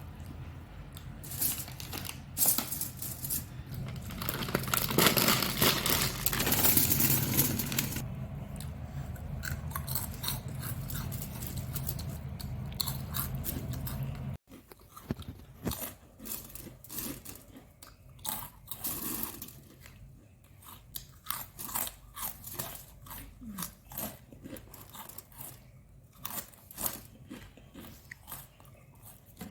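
A person chewing and crunching crisp snack food close to the microphone. In the first half the crunching is dense over a low steady hum. After a sudden cut about halfway, it turns into separate, slower crunches and chews over a quieter background.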